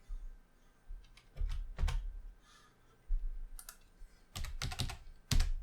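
Computer keyboard keys and clicks pressed one by one at a desk: a few separate sharp clicks, then a quicker run of them near the end.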